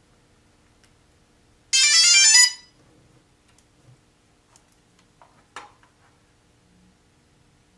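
DJI Phantom quadcopter's power-up tones as its flight battery is connected: a quick run of loud electronic beeps lasting under a second, about two seconds in. A light click follows a few seconds later.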